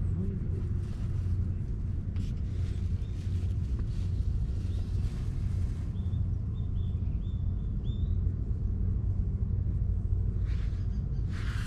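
Steady low outdoor rumble, with a bird giving a run of short, high chirps about six seconds in and soft rustling now and then.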